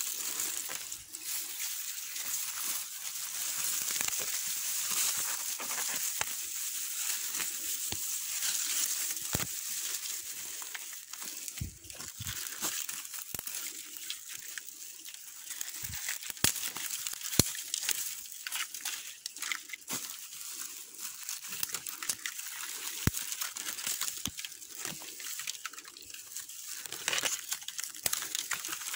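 Dry leaf litter, twigs and grass rustling and crackling in many small snaps, from footsteps through undergrowth and dry grass being pulled by a gloved hand. A steady high hiss lies under it, strongest in the first half.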